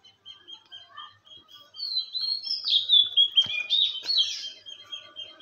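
Small birds chirping: a steady series of short high chirps, about four a second, with a louder twittering song of quick rising and falling notes in the middle. A single sharp click, like the metal spatula tapping the wok, comes about three and a half seconds in.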